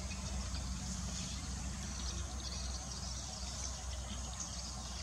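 Steady low hum of an idling vehicle engine, with insects and birds chirping faintly above it.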